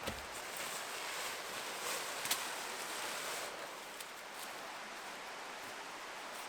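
Rustling and handling noises while a camp is set up: a soft thump at the start, a louder stretch of rustling over the first few seconds, and a sharp click about two seconds in.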